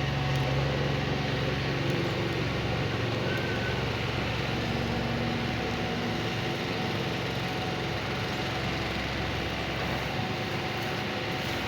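Excavator's diesel engine running steadily, its deep low hum easing off after the first second or two.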